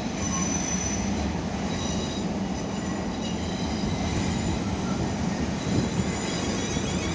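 Class 455 electric multiple unit rolling slowly along the platform with a steady rumble, its wheels giving a faint high-pitched squeal on the rails.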